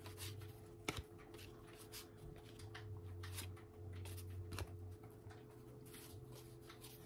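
Baseball trading cards being flipped through by hand: faint slides and soft taps of card stock, with one sharper tap about a second in. A low steady hum runs underneath.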